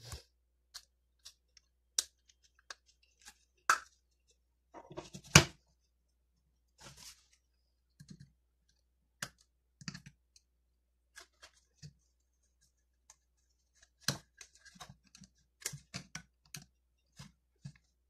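Sparse small clicks and light knocks from the plastic frame of a PAPST brushless DC fan being handled and a flat screwdriver working on the metal parts at its rotor shaft. The loudest knocks come in the first few seconds, and a quick run of clicks comes near the end.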